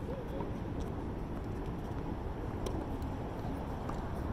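Steady low rumble of open-air background noise, with a few faint taps.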